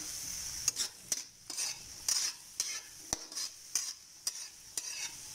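Metal spatula scraping and knocking against a wok about twice a second while stir-frying diced chayote with garlic and onion, the hot oil sizzling steadily underneath.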